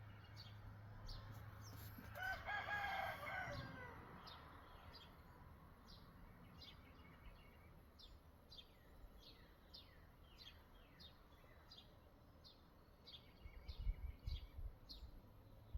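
A rooster crowing once, faint, about two seconds in, over small birds chirping repeatedly with short, high, falling notes. A few low bumps near the end.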